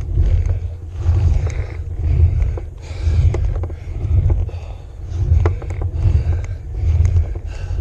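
Wind rumbling on the microphone of a bicycle's handlebar camera, swelling about once a second, over a cyclist's hard breathing on a steep climb, with scattered light clicks from the bike.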